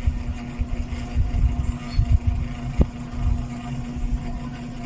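NSS 410 mm mini ceiling fan running with a steady hum over uneven low rumbling, with one sharp click a little under three seconds in: the noise the fan develops after running for a few hours.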